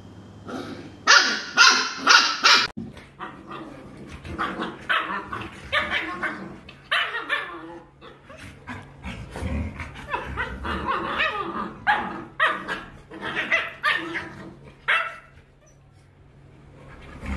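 A dog barking sharply four times in quick succession. Then Rottweilers, a puppy among them, play-wrestling, with a long string of short barks and yips.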